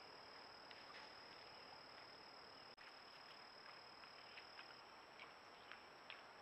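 Faint steady high-pitched insect chorus over a low hiss, with a scattering of soft short ticks that come more often in the second half.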